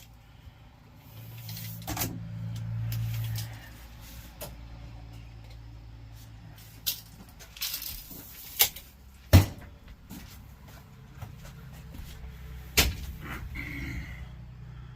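Scattered knocks and clunks as a table and a truck toolbox are handled and shifted into place, the loudest about nine seconds in, over a low steady hum.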